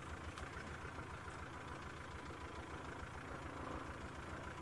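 Safari game-drive vehicle's engine running steadily at low speed while it drives along a grassy track, heard faintly from the vehicle.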